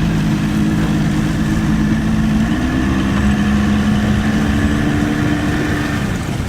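Motorboat engine idling steadily, its pitch dropping slightly about two and a half seconds in and dying away near the end.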